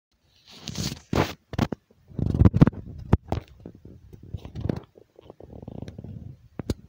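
Handling noise: irregular scraping and rustling with several sharp clicks.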